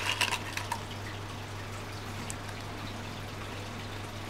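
Small strawberry Choco Ball candies rattling out of a cardboard box as they are tipped into the mouth, a quick cluster of clicks in the first moment. Then only a steady low electrical hum remains.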